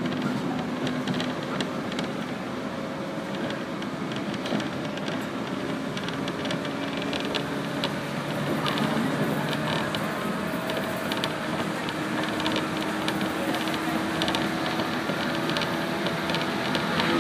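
Interior running noise of a 115-series electric train: a steady rumble with a motor hum that rises slightly in pitch in the second half, and frequent small creaks and rattles from the car body.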